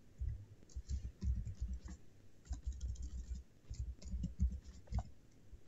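Computer keyboard being typed on: an irregular run of light key clicks with dull low thumps under them.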